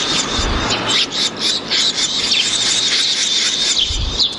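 Insects trilling steadily on one high note, with scattered short high chirps over a constant hiss.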